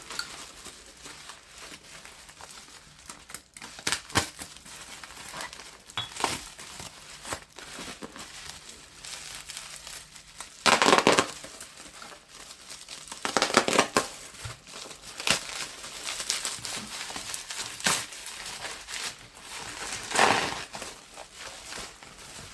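Crinkly packaging being handled and unwrapped from around a crystal, in irregular rustling bursts, the loudest in the middle and again near the end.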